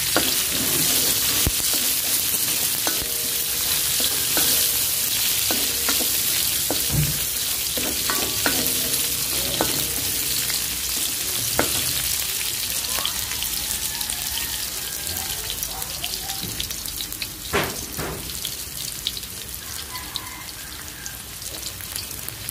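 Sliced red onions and garlic sizzling in hot oil in an aluminium wok, with the clicks and scrapes of a spatula stirring them through the first half. The sizzle slowly dies down toward the end.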